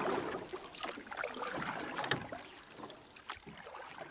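Water sloshing and bubbling around a camera held just under the sea surface, with scattered sharp pops and clicks, the strongest about two seconds in; it grows fainter toward the end.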